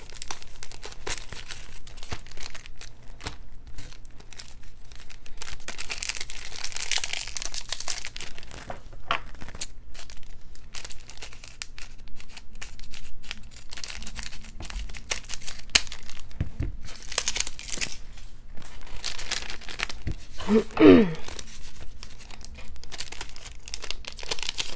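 Foil Pokémon card booster packs being torn open and their wrappers crinkling as the cards are handled, a continuous run of rustles and sharp clicks. Near the end comes one short falling vocal sound.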